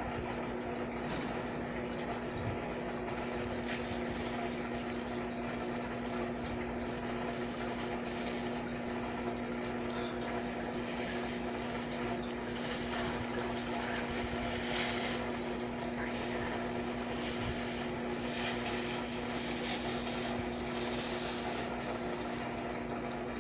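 A steady hum, one low tone with fainter tones above it, under a light hiss that swells a little several times in the second half.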